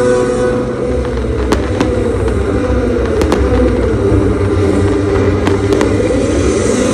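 Fireworks display: a steady rumble of bursting shells with about seven sharp cracks scattered through it.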